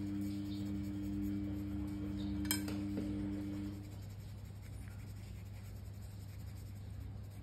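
Black coloured pencil shading on a paper colouring page, a light scratching. A sustained background-music drone of two low tones stops about halfway through, and a single sharp click comes about a third of the way in.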